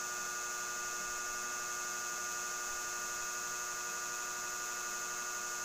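Steady electrical hum with several constant high whining tones, unchanging throughout.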